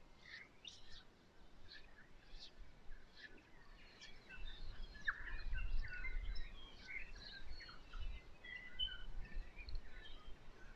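Birdsong: many short chirps and whistles from several birds, sparse at first and busier from about four seconds in, with a faint low rumble underneath.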